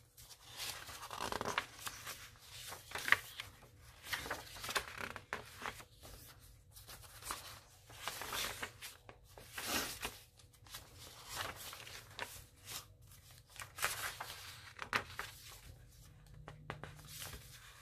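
Paper pages of a handmade junk journal being turned and handled: irregular rustling and crinkling of paper.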